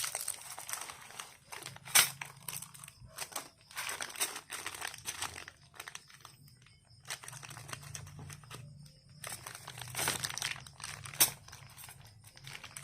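Plastic packaging crinkling and tearing as a bundle of motorcycle spokes is unwrapped, with irregular handling clicks and two sharper knocks, about 2 seconds in and near the end.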